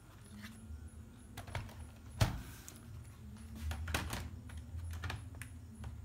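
Hard plastic clicks and knocks as a Dell laptop is turned over, set down and its removable battery pack handled at the battery bay, with one sharp click about two seconds in and a cluster of clicks around four seconds.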